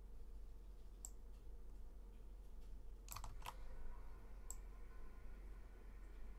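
A few faint, isolated clicks from computer keys or buttons, a quick pair about three seconds in, over a low steady hum.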